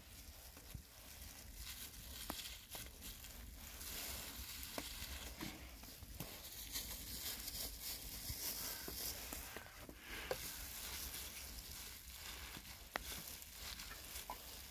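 Steady crackling hiss with scattered faint pops from a wood fire burning in a metal grill, with the odd soft tap of a knife slicing raw chicken breast on a wooden stump.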